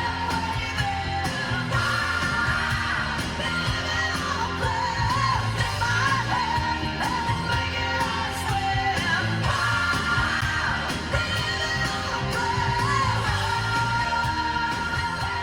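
Rock-pop song with a singing voice over guitar and a steady bass, played through a car's audio system and recorded on a phone.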